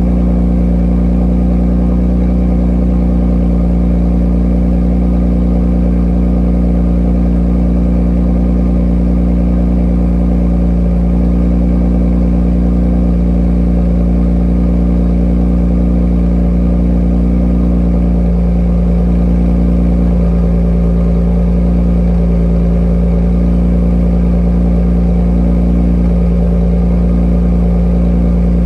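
Genesis G70's twin-turbo 3.3-litre V6 idling steadily through an Ark Performance cat-back exhaust after a cold start, with a deep, even exhaust note.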